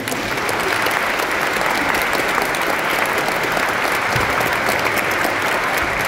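Audience applauding with steady, even clapping.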